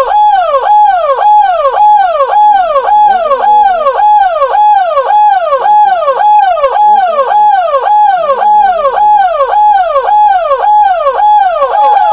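Ambulance's electronic siren wailing in a fast repeating cycle, about two a second: each sweep holds a high note, then drops and jumps straight back up.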